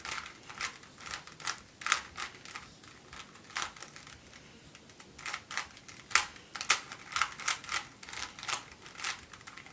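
Rubik's Cube layers being twisted by hand mid-solve: irregular plastic clicks and clacks in quick runs, with a couple of brief pauses near the middle.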